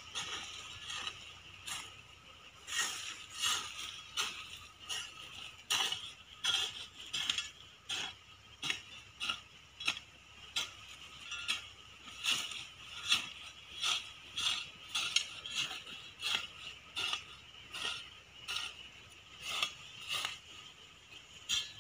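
Short-handled hand hoe chopping and scraping into dry, sandy soil in a steady run of strokes, a little more than one a second, each a short gritty scrape.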